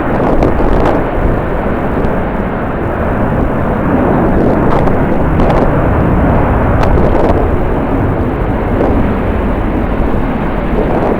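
Strong wind buffeting the microphone, a loud, steady rushing rumble, with the noise of jet airliner engines mixed in.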